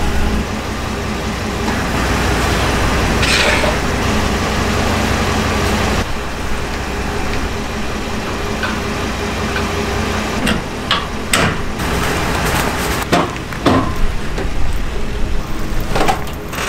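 Pickup truck engine running steadily at idle, with several sharp knocks over the last several seconds.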